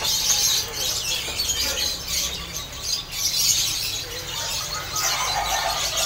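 Many caged songbirds chirping and twittering at once, a dense high-pitched chorus.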